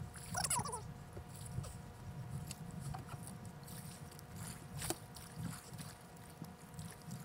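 Kayak being paddled through shallow spring water: paddle splashes and water washing along the hull over a low steady rumble. A short falling call sounds about half a second in.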